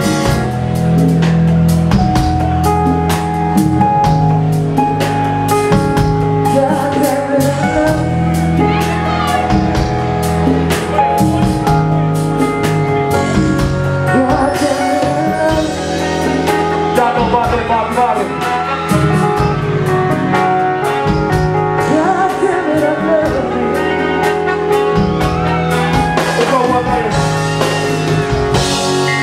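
Live band music: keyboard chords over drums and bass, with a man singing into a microphone from several seconds in.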